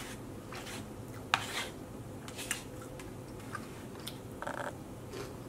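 Quiet eating sounds: a fork picking at salad in a foam takeout container and a mouthful being chewed, heard as a few soft clicks, scrapes and mouth sounds.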